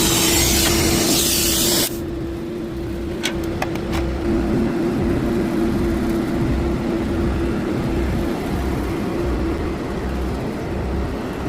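A loud hiss that cuts off suddenly about two seconds in, over a steady machine hum that runs on, with a few sharp clicks shortly after the hiss stops.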